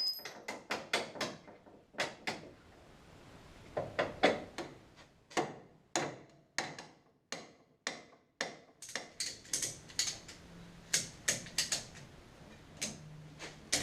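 Ratchet wrench clicking in irregular runs while suspension bolts are being undone.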